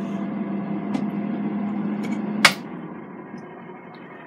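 PINSOON air fryer oven running with a steady hum from its convection fan and rotisserie. About two and a half seconds in there is a sharp click, and the hum drops away as the oven stops.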